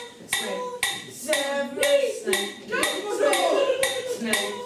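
Steady ticking, about two sharp, slightly ringing metallic ticks a second, with a voice sounding over it.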